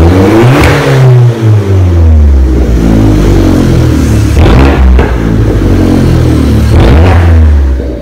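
The stock exhaust of a warmed-up 2012 Fiat 500 Abarth with its 1.4-litre turbocharged four-cylinder engine. The engine idles between several quick throttle blips, and the pitch rises and falls each time.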